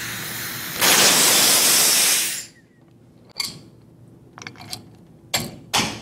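Compressed shop air hissing loudly as the air supply is removed from a pneumatic valve actuator, cutting off suddenly after about two and a half seconds. Then a few separate sharp clicks and knocks of small parts being handled and fitted.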